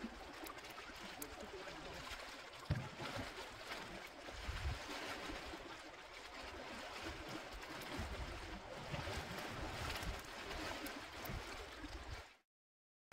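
Outdoor seashore ambience: sea surf washing over rocks as an even hiss, with wind buffeting the microphone in low rumbling gusts. A single sharp tap a little under three seconds in, and the sound cuts off to silence just before the end.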